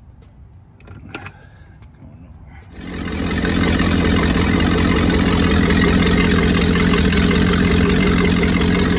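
A few faint ratchet clicks, then about three seconds in a boat's sterndrive engine is heard running steadily through its Alpha drive on a garden hose, with exhaust water splashing from the outlets. It runs with no bearing noise, a sign that the new gimbal bearing has cured the grinding.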